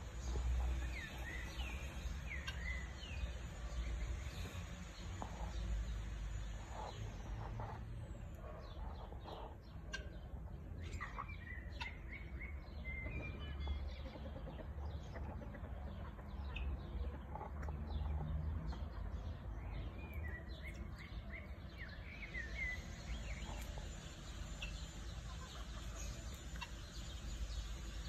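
Farmyard chickens clucking, with short chirping calls in scattered clusters, over a low steady rumble.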